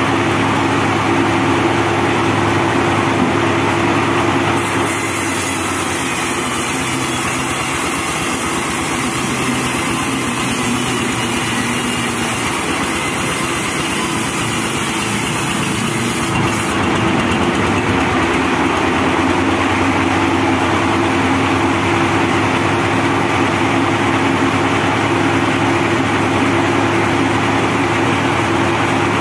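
Diesel-driven homemade band sawmill running steadily while a teak log is pushed through the blade. The high, thin part of the sound changes from about five seconds in until about seventeen seconds in.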